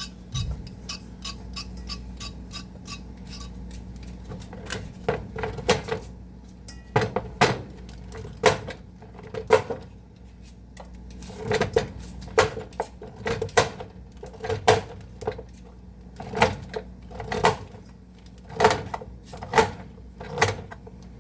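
Vegetable peeler scraping down carrots in repeated strokes: light quick strokes at first, then from about five seconds in louder strokes about one a second.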